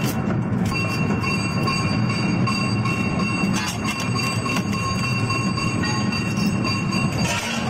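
Industrial double-shaft shredder running empty, its cutter shafts turning with nothing to cut: a steady machine drone with a steady high whine over it and a few scattered clicks.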